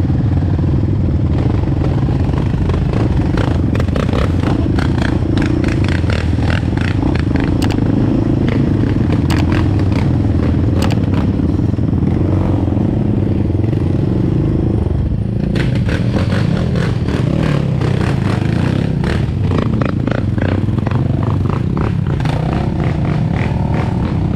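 Off-road vehicle engine running steadily while riding a dirt trail, with frequent clattering and scraping of stones and loose parts throughout. The clatter eases off briefly about midway.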